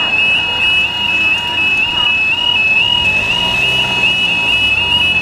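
Level crossing warning alarm sounding its high warbling yodel, repeating a few times a second, while the barriers lower. A car's engine hum rises about three seconds in as it pulls up to the barriers.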